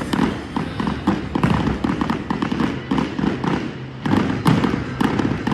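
Fireworks bursting overhead in a rapid, dense series of bangs and crackles, with low booms underneath.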